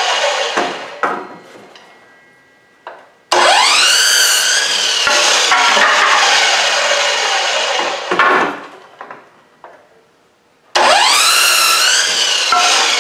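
Electric chop saw cutting 1x boards to length. The first cut finishes and the blade winds down. About three seconds in, the motor spins up with a rising whine and cuts through another board for about five seconds, then winds down. Near the end it spins up again for the next cut.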